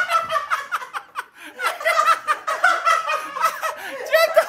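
People laughing loudly, in quick repeated peals.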